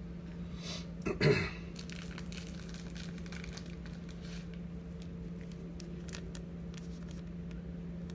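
Gloved hands handling trading cards and foil pack wrappers: a brief crinkling rustle about a second in, then scattered light clicks and ticks, over a steady low electrical hum.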